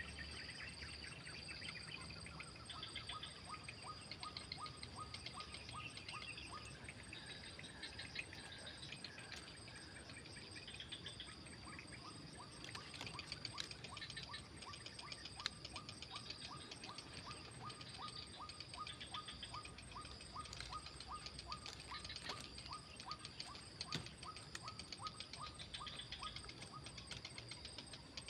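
A steady high insect chorus of crickets or cicadas, with long runs of quick, evenly spaced ticking calls that stop and restart. Short bird chirps come and go over it.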